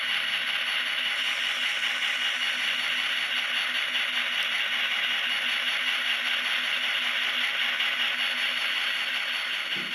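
Diesel locomotive engine sound from an ESU LokSound Select Micro decoder, played through the tiny speaker of an N-scale Kato SD45 model locomotive. It runs steadily while the model rolls along the track, mixed with the small whirr of its motor and wheels.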